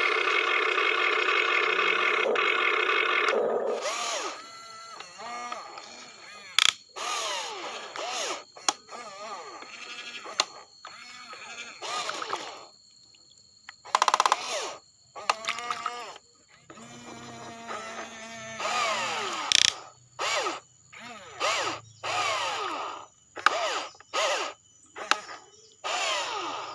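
Small electric motors and gearing of a toy RC excavator whirring. The first few seconds are a loud steady whir, then come many short bursts whose pitch rises and falls as each motor speeds up and slows down.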